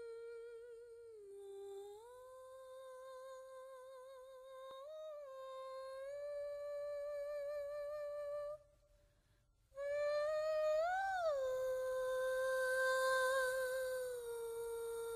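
A single voice humming a slow wordless melody in long held notes with a slight waver. It breaks off for about a second near the middle, then carries on with a quick rise and fall in pitch.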